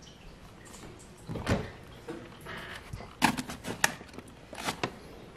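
A cupboard door opening with a thump about a second and a half in, then a foil bag of cat food crinkling in a few sharp bursts as it is grabbed from the shelf.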